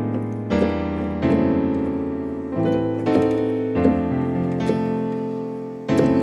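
Keyboard playing a run of full stacked chords, one after another with about seven changes and no breaks between them. This is the overloaded polychord playing, all tension and no release, that he says doesn't come out well.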